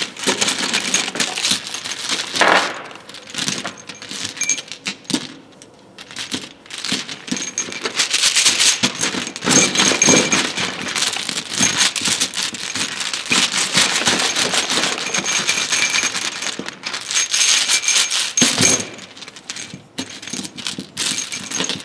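Many small steel sockets clinking and rattling against one another in a dense metallic jangle as they are shaken dry after a soak, easing off for a few seconds in the first third.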